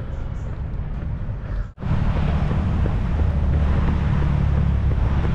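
Wind buffeting the microphone, a heavy low rumble. It cuts out briefly about two seconds in and comes back louder.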